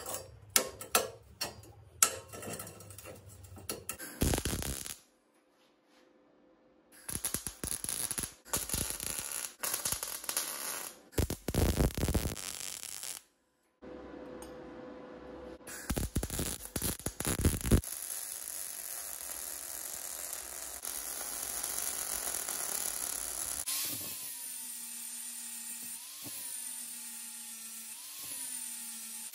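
Square steel tubing being handled and fitted, with sharp metal clicks, then several short loud bursts of metalworking noise. Near the end an angle grinder runs on the steel tube, its pitch dipping three times as the disc bites.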